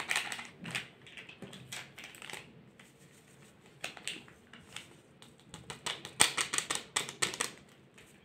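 Light taps, clicks and rustles of paper sachets of baking powder and vanilla being handled and emptied over a glass mixing bowl of flour, with a denser run of quick ticks about six seconds in.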